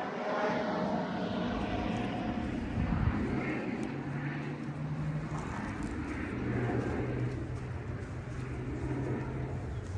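A distant engine's steady low drone, its pitch shifting slightly partway through, over outdoor background noise.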